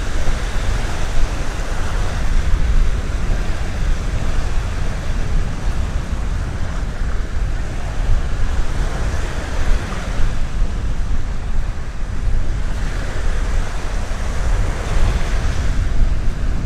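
Black Sea surf breaking and washing up the beach, swelling in several surges, with heavy wind rumble on the microphone.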